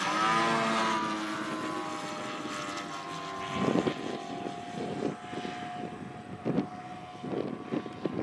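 Engine and propeller of a radio-controlled model aeroplane in flight, a steady drone whose pitch falls over the first second or so and then holds level. Irregular low thuds come in from about three and a half seconds in.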